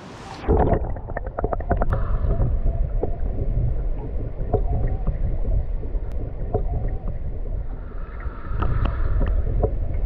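Water sound heard through a camera microphone held under the surface of a pond: a loud, muffled low rumble with many small knocks and clicks of water and handling against the camera. The high sounds are cut off from about half a second in.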